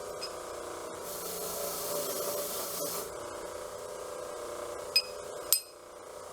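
Electric grinder running steadily with a wire wheel. From about one to three seconds in, a loud hiss as the wire wheel scrubs surface rust and paint off a vise part, then two sharp metallic clinks near the end.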